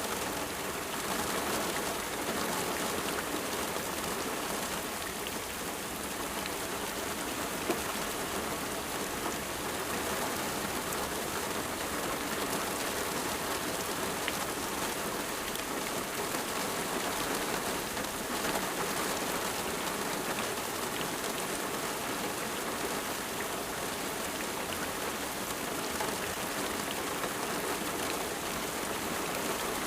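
Steady rain falling and pattering on a surface, with fine scattered drops.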